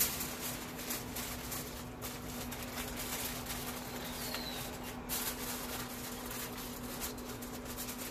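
Aluminium foil crinkling and crackling irregularly as hands fold it tightly around a brisket. A short bird chirp comes about halfway through, over a steady low hum.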